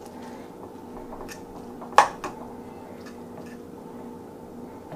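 Fork stirring ramen noodles and egg in a metal loaf pan: a few light clicks of the fork against the pan, with one sharper clink about two seconds in, over a steady hum.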